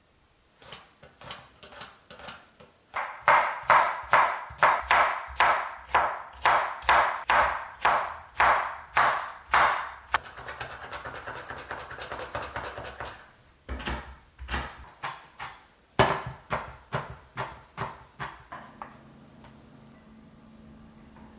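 Knife chopping food on a cutting board in quick, even strokes, about two or three a second. It breaks for a few seconds of continuous hissing, then resumes for a few more strokes before stopping, leaving a faint steady hum.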